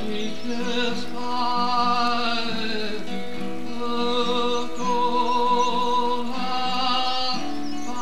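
Music: a slow song with long held notes.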